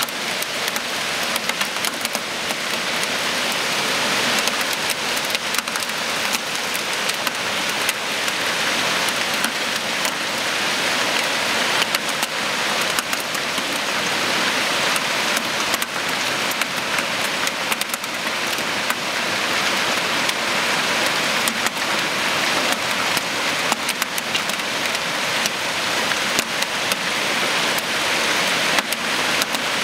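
Heavy hail with centimetre-sized stones pelting the street and parked cars. It makes a dense, steady hiss packed with sharp ticks of individual stones striking.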